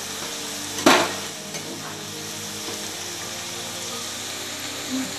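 Chopped onions and ginger-garlic paste sizzling steadily in hot oil in a wok, with one sharp knock of a cooking utensil against a pan about a second in.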